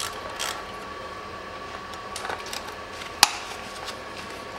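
A ratchet and socket being handled at the bolts of a transmission oil pan: a few faint taps and one sharp metal click about three seconds in, over a faint steady hum.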